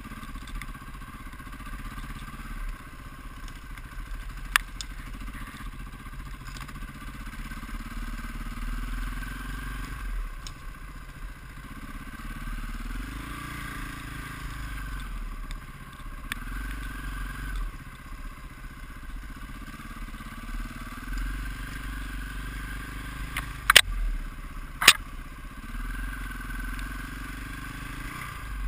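On-board sound of a KTM enduro motorcycle engine under way, its note rising and falling again and again as the throttle is opened and closed. Sharp knocks stand out about four seconds in and twice near the end. The two near the end are the loudest sounds.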